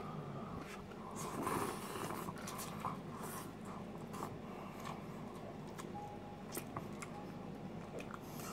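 Faint eating sounds of a person chewing and slurping instant cup noodles, with a soft swell about a second in and a few small clicks.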